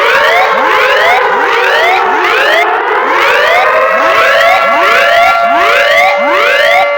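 Emergency alert system alarm built from layered siren tones: short rising whoops repeat about twice a second over steady held tones, while a slower wailing tone falls and then climbs again about three seconds in.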